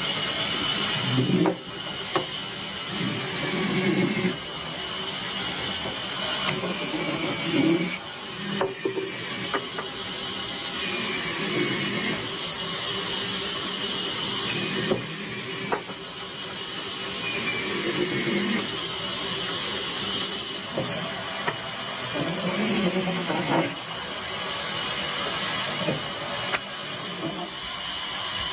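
Woodworking sounds: tools working wood, a steady noisy rasp broken by a few sharp knocks.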